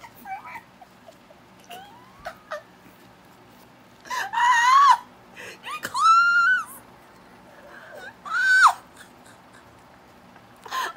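Three high-pitched, drawn-out wailing cries, each rising and then falling in pitch, about two seconds apart, with faint small clicks and rustles between them.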